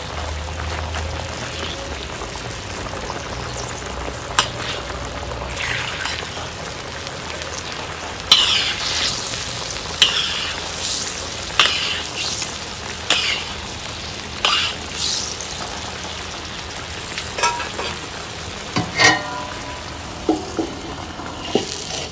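Soy sauce sizzling and bubbling in a stainless steel pot around a whole chicken, with a metal spoon scraping against the pot in short strokes as the chicken is turned and basted. Near the end there is a ringing metal clink.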